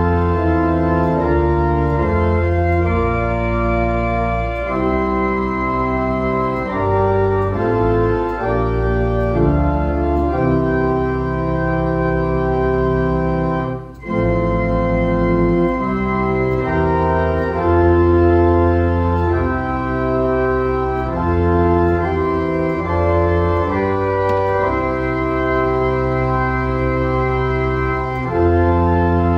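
Church organ played on manuals and pedals: a slow hymn-tune prelude in held chords over low pedal bass notes, with a brief break between phrases about halfway through.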